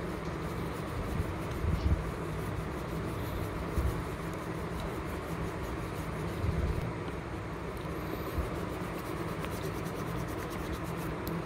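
Yellow crayon rubbed back and forth on paper, colouring in an area with steady scratchy strokes over a low background rumble.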